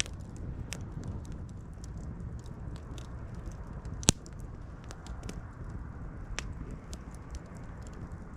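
Wood campfire crackling, with scattered small pops over a low steady rumble and one sharp, loud pop about four seconds in.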